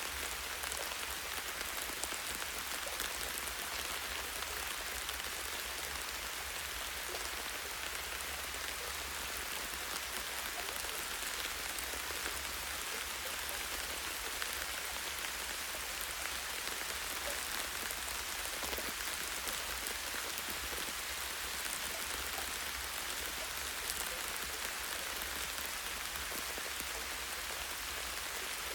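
Light, steady rain falling on a tree's branches and leaves: an even hiss of rain with many small drop ticks and no change in intensity, over a faint steady low rumble.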